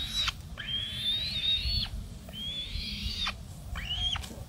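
Young black-shouldered kite calling: a string of high, drawn-out whistled screeches, each about a second long with short gaps between, rising sharply at the start and then held high.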